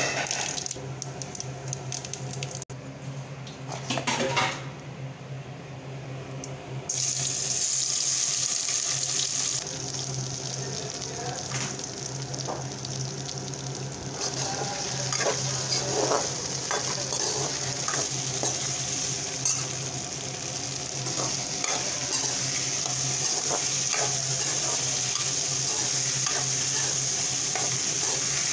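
Hot oil sizzling in a pan with a few cumin seeds, then from about seven seconds in a louder, steady sizzle as spice-coated ivy gourd strips fry in the oil. Occasional clicks and scrapes of stirring in the pan, over a steady low hum.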